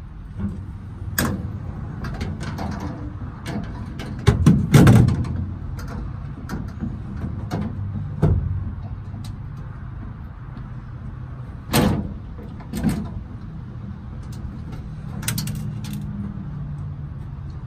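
Scattered knocks and clanks of a metal spoiler and its steel L brackets being handled and fitted against a pickup's sheet-metal bed, the loudest a few seconds in and again near 12 seconds, over a steady low rumble.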